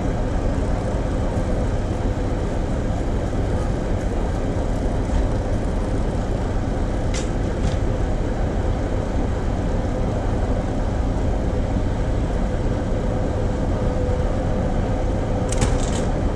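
Steady rumble of a heritage railway train, with a faint even hum throughout and a couple of brief clicks about seven seconds in and near the end.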